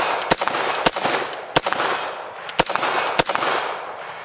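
AR-15 rifle fitted with a muzzle brake, fired five times at an uneven pace. Each shot is followed by a long echo that fades into the next.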